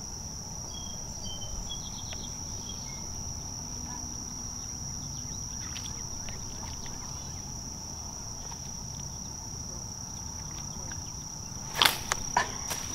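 Insects trilling: one steady, unbroken high-pitched tone over a low outdoor hiss. Near the end comes a brief cluster of sharp clicks and splashes.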